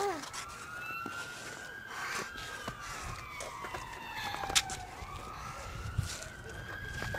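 A siren wailing slowly, its pitch falling over a few seconds and then rising again, cut off abruptly at the end. A sharp click sounds a little past halfway.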